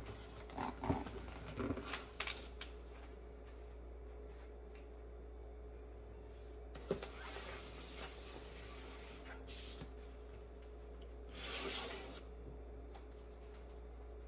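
Large cardboard subwoofer box being handled and turned over on a desk: a few soft knocks in the first two seconds, a sharp tap about seven seconds in, and a brief rub of cardboard near twelve seconds, over a steady low hum.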